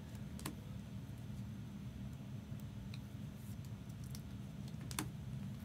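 Trading cards being handled: two sharp clicks, about half a second and five seconds in, and a few fainter ticks over a steady low hum.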